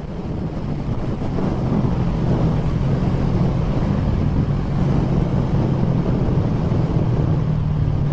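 Sport motorcycle engine running steadily at cruising speed, with wind rushing over the rider's camera microphone; the sound fades in over the first second, then holds even.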